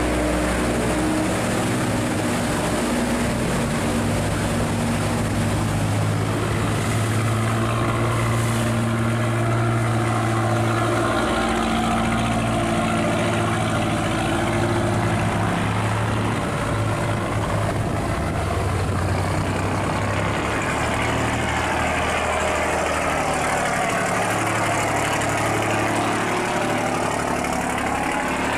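Engines of river cargo boats running steadily as they pass close by, with churning, rushing water along their hulls. The engine tone changes about halfway through as one boat gives way to the next.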